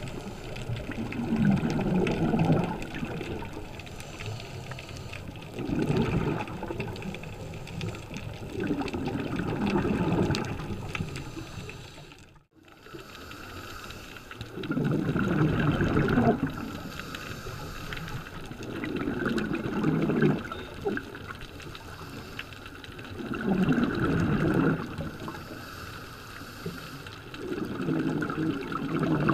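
Scuba regulator exhaust bubbles, heard underwater: a bubbling rush with each exhale, about every four seconds, with quieter stretches between breaths.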